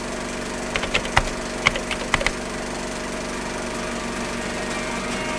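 A steady drone of several held tones, with a cluster of about six sharp cracks in the first couple of seconds.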